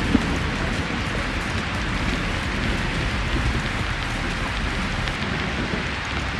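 Steady rushing outdoor noise, with a single sharp click just after the start.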